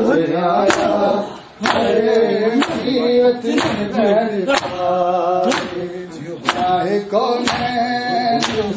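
Male voices chanting a Punjabi noha (lament), with sharp slaps of hands on bare chests (matam) keeping a beat about once a second.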